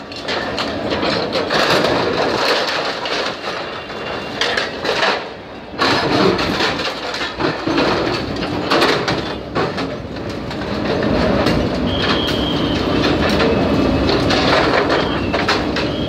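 Backhoe loader's diesel engine running under load while its bucket wrenches apart a shopfront's sheet-metal awning and signboards: repeated crashes, scraping and rattling of metal and debris. The engine grows louder after a short lull about five seconds in.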